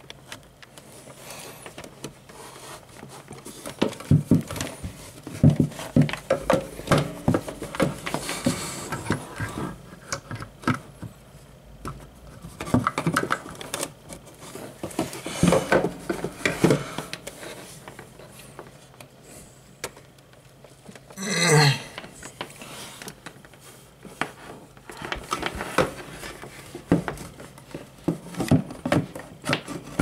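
Scattered clicks, knocks and rattles of hands working under a desk among cables and a clamp-on lamp's arm and clamp, coming in clusters with one brief louder sound about two-thirds of the way in.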